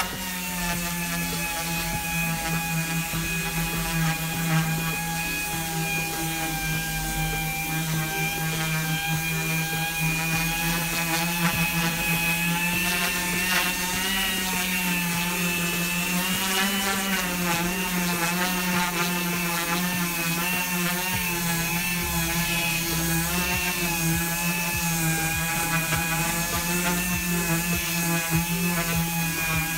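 Random orbital sander starting up and running steadily, sanding the old finish off a wooden dresser top. Its steady whine wavers a little in pitch about halfway through.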